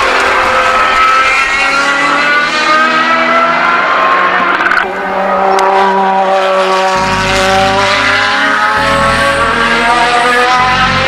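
Ferrari FXX race cars' naturally aspirated V12 engines at full song on track, the pitch climbing again and again as they accelerate through the gears. The loudness dips briefly about five seconds in, then the engine note climbs again.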